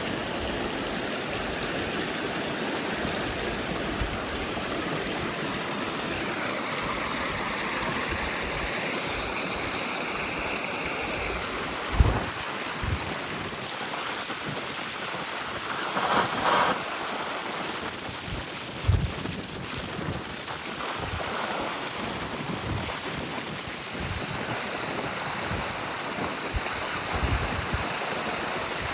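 Rainwater rushing in a steady flow after heavy rain, with a few short low thumps about twelve, seventeen and nineteen seconds in.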